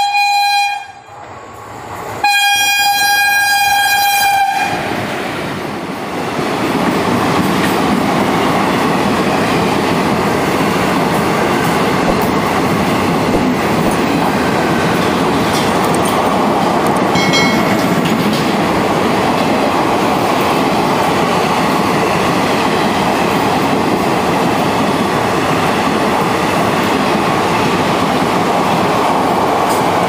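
WAP-4 electric locomotive's horn sounding twice: one blast ends about a second in, and a second lasts about two seconds. Then the train passes at speed, with a steady loud rush from the coaches and wheels.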